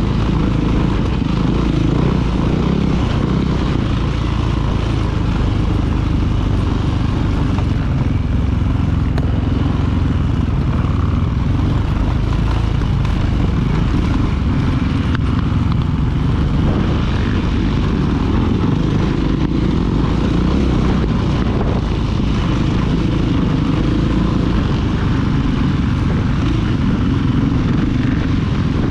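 2016 KTM 500 EXC's single-cylinder four-stroke engine running steadily as the dirt bike is ridden off-road.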